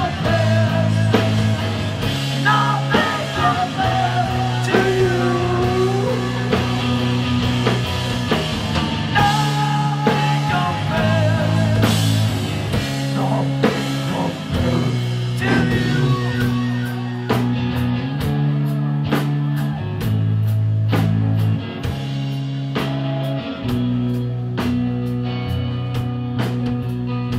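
Live rock band playing an instrumental passage on electric guitar and drum kit. Held low notes change every few seconds under a wavering high melody line. In the second half, steady cymbal strokes come about twice a second.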